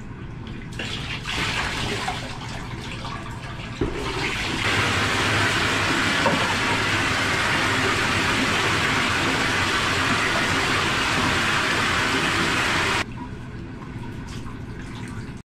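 Water poured from a cooking pot over a dog in a bathtub. Then the bathtub faucet runs steadily into the pot and is shut off suddenly near the end.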